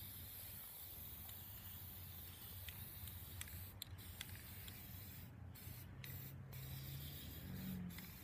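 Aerosol spray-paint can hissing in a steady spray, cut by a few short pauses in the second half as the nozzle is let go and pressed again.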